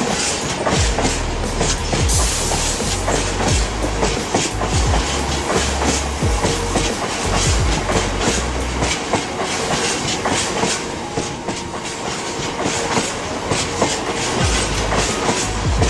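Loaded freight wagons rolling past on the rails, their wheels clicking steadily and irregularly over rail joints and points.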